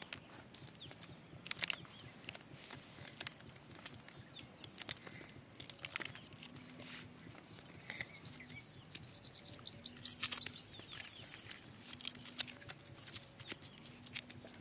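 Small knives slicing green chillies by hand, with scattered light clicks and taps. Midway a bird chirps in a rapid high chattering run lasting a few seconds.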